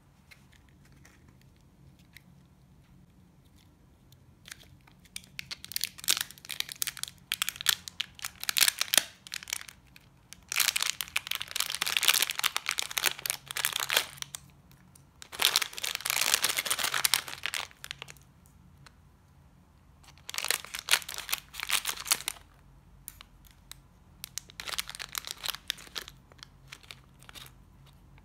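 Thin clear plastic packaging crinkling and being torn open by hand, in several bursts of crackling with short pauses between, the loudest stretches in the middle.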